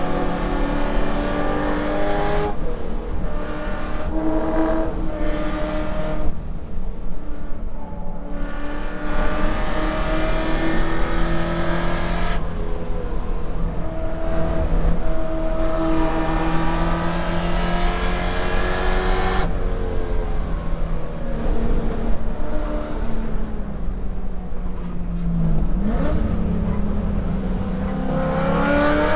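Holden VK Commodore's 308 V8 race engine heard from inside the car while it is driven hard on the track. The revs climb and then drop suddenly several times at gear changes or lifts, with one long pull at high revs through the middle.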